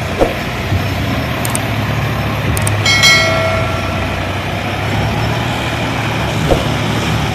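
Sonalika DI 35 tractor's diesel engine running steadily under heavy load while pulling a fully loaded trolley. A brief high-pitched tone sounds about three seconds in, and there are a couple of short knocks.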